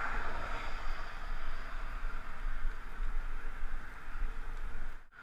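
Wind buffeting the microphone of a helmet-mounted camera, with gusty low rumbles under a steady hiss of highway traffic and road noise. The sound drops out briefly near the end.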